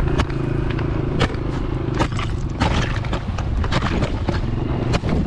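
Footsteps crunching and scraping on rough ice and slush, irregular sharp crunches, over a low steady hum that fades after about a second.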